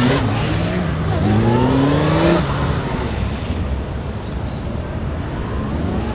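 Honda police motorcycle engine revving up as the rider accelerates, its pitch rising twice. The throttle shuts off about two and a half seconds in, leaving a lower, steadier engine sound.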